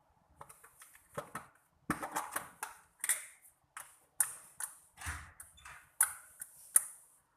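Slime being squeezed and poked by hand, giving an irregular run of sharp clicks and pops as air pockets in it burst.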